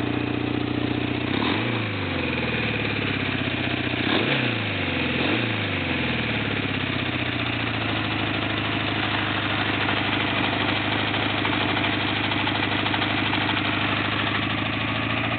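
Kawasaki Eliminator 600 inline-four motorcycle engine idling, blipped three times in the first six seconds, each rev rising and falling back quickly, then settling into a steady idle.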